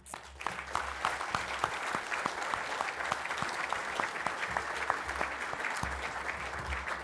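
Audience applauding steadily, a room full of many hands clapping at the close of a speech.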